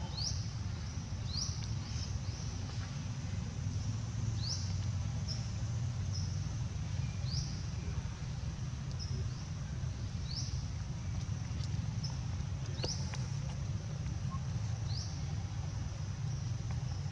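Short, high chirps that sweep upward, repeated about every one to two seconds, from an animal calling. Under them runs a steady low rumble.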